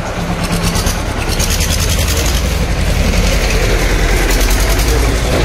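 A heavy vehicle engine running close by with a fast, even clatter, growing louder over the first few seconds.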